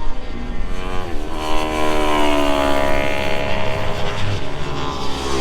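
Motorcycle engine running hard on a race track, its pitch dipping about a second in, then climbing and falling off over a steady low rumble.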